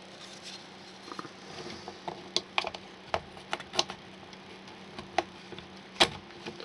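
Irregular clicks and light knocks from a plug and wiring being handled as a second light bulb is plugged in, most of them between about two and four seconds in and the sharpest about six seconds in, over a faint steady hum.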